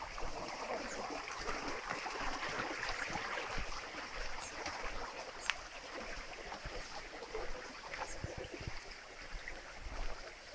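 Water running steadily in a concrete irrigation channel, a constant rush, with occasional light ticks and rustles over it.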